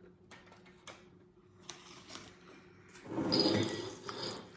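Objects being handled and moved: a few faint clicks, then a louder rustle and clatter lasting about a second, starting about three seconds in.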